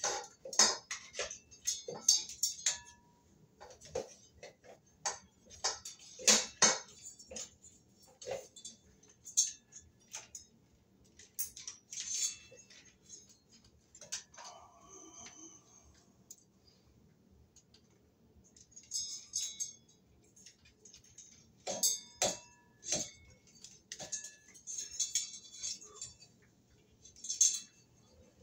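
Ceiling fan mounting hardware and wiring clicking, clinking and rattling in irregular bursts as the wires are pushed up into the metal ceiling bracket, with a quieter pause about two thirds of the way through.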